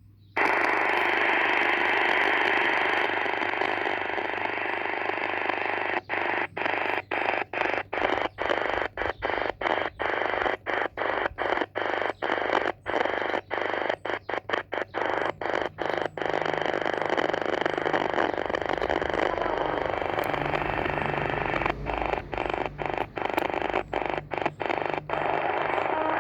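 Sony ICF-SW100 shortwave radio hissing with band noise on about 11,900 kHz. Its audio drops out briefly two or three times a second, in two runs, as the synthesised tuning is stepped across the band.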